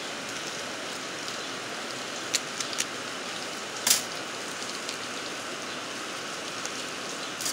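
A few sharp metallic clicks, the loudest about four seconds in, as thin steel laminations are pried out of a small transformer's core with a knife blade, over a steady background hiss.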